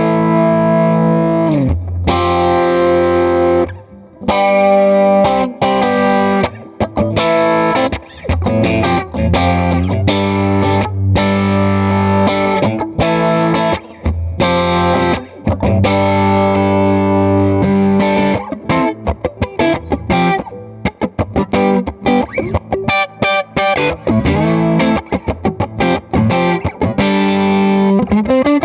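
Electric guitar played through the Electra MPC-12 compressor module into a driven amp, giving a distorted tone. Held, ringing chords give way after about 18 seconds to quicker, choppy rhythm strikes.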